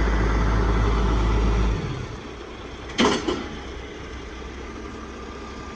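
Kenworth self-loading logging truck's diesel engine running loudly and steadily, then dropping to a much quieter run a little under two seconds in. About three seconds in there is a sharp clunk, followed by a smaller one.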